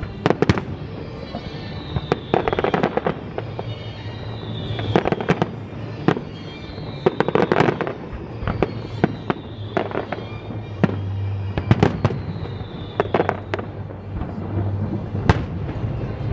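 Aerial fireworks shells bursting in sharp, irregular bangs, coming in quick clusters a few seconds apart.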